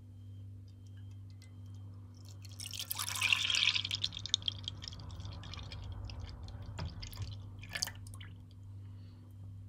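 Full-fat milk poured into a non-stick pan, splashing loudest about three seconds in and then trickling and dripping as the pan fills, with a couple of sharp knocks near the end.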